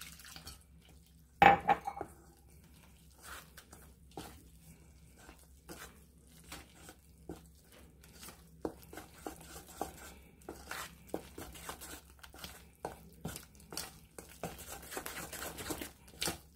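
Fork stirring flour batter in a stainless steel mixing bowl: repeated metal-on-metal clinks and scrapes, growing busier near the end. One louder knock comes about a second and a half in.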